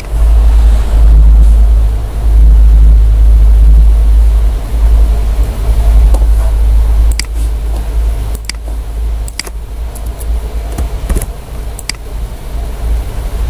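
A loud, deep rumble that eases off in the second half, with half a dozen sharp computer-mouse clicks in the second half.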